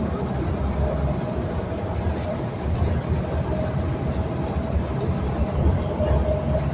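Interior sound of a moving city bus: a steady low engine and road rumble with a constant whine over it.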